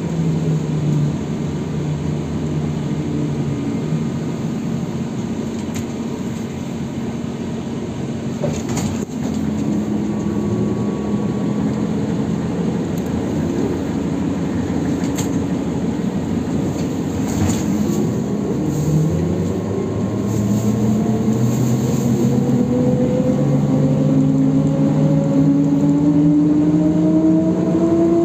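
ZiU-682B trolleybus heard from inside the cabin while under way: a steady traction-motor hum over the rumble of the ride, with a few sharp knocks. Over the last several seconds a motor whine rises steadily in pitch as the trolleybus speeds up.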